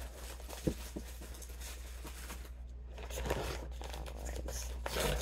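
Brown kraft paper bag rustling and crinkling as it is handled and pulled open, growing louder over the last couple of seconds. A single short knock sounds just under a second in.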